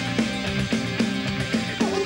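Rock band playing live at full volume: drums on a steady beat with electric bass, guitar and saxophone. A singer's voice comes in near the end.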